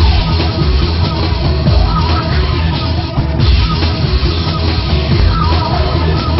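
Loud rock music with heavy drums and distorted guitar.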